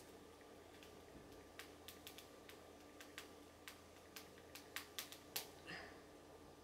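Faint, irregular taps of fingers on phone touchscreens as a text is typed without thumbs, the taps coming more often in the second half.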